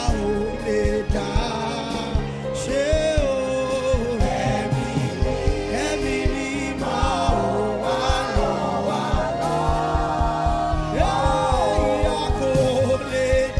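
Gospel worship song: several voices singing together over a band with drums.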